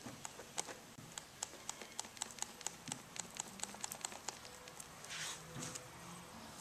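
Paintbrush dabbing black-tinted epoxy resin into woven fiberglass cloth: a quick run of light taps, about four a second, then a couple of brushing swishes about five seconds in.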